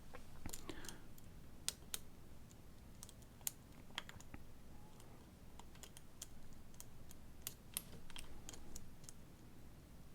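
Lock picking: a metal pick and tension wrench clicking irregularly inside a pin-tumbler challenge lock as pins are lifted and set.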